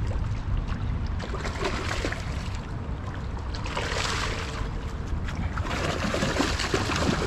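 Boots squelching and sliding in wet riverbank mud as someone walks along the shore, in uneven patches of steps, over a steady low rumble.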